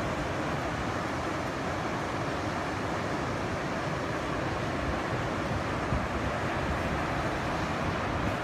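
Ocean surf from a typhoon swell washing steadily onto the beach, with wind buffeting the microphone.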